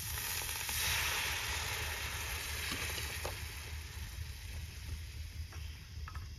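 A pan of hot fried onion-tomato masala sizzling after a little water is added. The hiss swells about a second in and then slowly fades to a lighter simmering sizzle.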